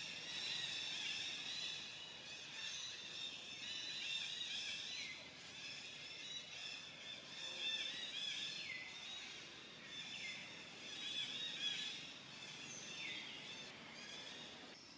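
Tropical forest ambience: a dense, high chorus of calling insects and birds, with a call that falls in pitch three times, a few seconds apart.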